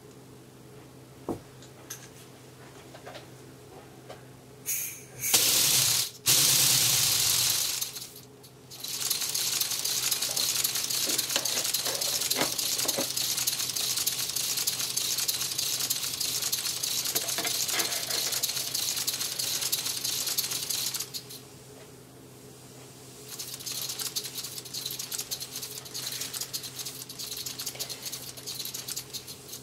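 Lego pneumatic inline-12 engine running on compressed air: a fast, dense rattle from the cylinders and valves over a steady hiss of exhausting air. Short loud blasts of air come about five seconds in, it then runs steadily, falls quiet for about two seconds a little past the twenty-second mark, and runs again more quietly.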